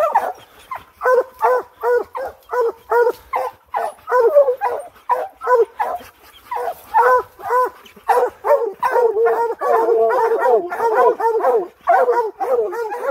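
A pack of hunting hounds barking treed at the base of a tree, the sign that they have a black bear up it. Short barks come about three a second from several dogs at once, overlapping more thickly in the last few seconds.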